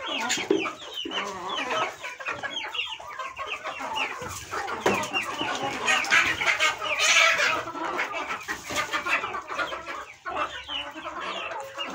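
A flock of chickens clucking and calling over one another, many birds at once, loudest a little past the middle.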